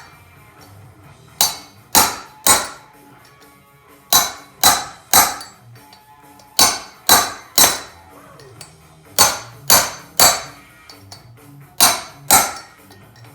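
Slide hammer of a blind bearing puller striking its stop again and again, pulling a wheel bearing out of a heated aluminium Honda TRX450R front hub. Sharp metallic clanks with a brief ring, in groups of three about half a second apart, a short pause between groups.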